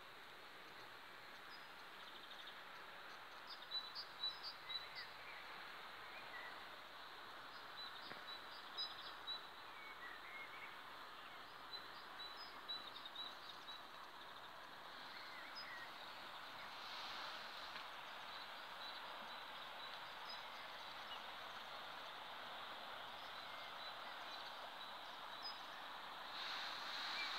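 Birds chirping outdoors: short high calls scattered throughout, over a faint steady background hiss.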